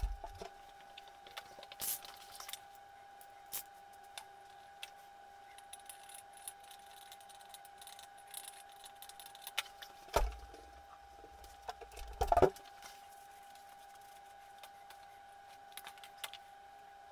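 Small metallic clicks and taps of a screwdriver working the screws out of a hand saw's wooden handle, with a couple of louder knocks about ten and twelve seconds in as tools and parts are put down on the board. A faint steady high tone runs underneath.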